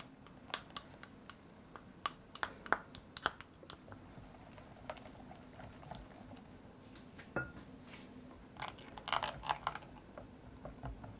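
Silicone-coated balloon whisk stirring thick cheesecake batter in a glass bowl: scattered soft clicks of the wires against the glass, with a louder, denser flurry of clicks about nine seconds in.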